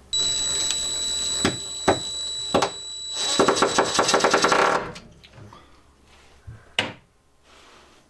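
DeWalt 20V Max cordless impact driver driving a screw into a cupboard door's latch plate: about three seconds of steady high motor whine with a few clicks, then a second and a half of rapid rattling hammering as the impact mechanism kicks in and the screw seats, stopping about five seconds in. A single sharp click follows near the end.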